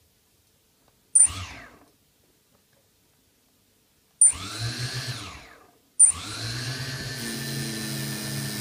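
EMAX 1806 2280 kV brushless motor with no propeller, driven by its ESC in short throttle blips. About a second in it gives a sharp tick and a brief whir that falls in pitch as it coasts down, then a longer one a little after four seconds. From about six seconds it runs steadily. This is a bench check of the motor's spin direction.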